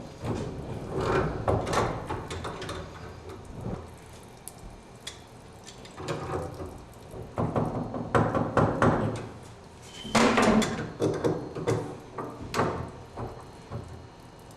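A wrench loosening the union nuts between an old tub and shower valve and its hot and cold supply pipes: irregular metal clinks, knocks and scraping in bursts, loudest about ten seconds in.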